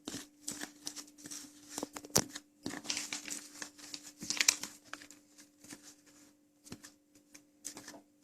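Spoon stirring flour and baking powder in a bowl: irregular scraping and rustling strokes with a few sharp clicks of the spoon against the bowl.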